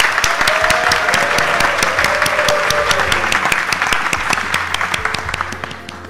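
Large audience applauding, many hands clapping at once, dying away near the end.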